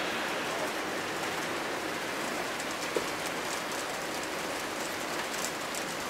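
Steady rain falling on a sheet-metal table top and grass, with one louder drop striking about halfway through.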